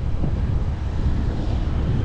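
Motorcycle riding: the engine running steadily under heavy wind rumble on the microphone.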